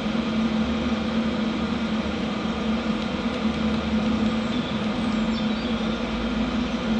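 HHO hydroxy gas welding machine running with its torch lit: a steady hum with a constant hiss over it.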